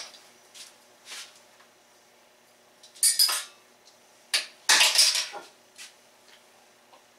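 Short clatters and clinks of kitchen items being handled on a tiled counter over a faint steady hum. The loudest come about three seconds in and again from about four and a half to five and a half seconds in.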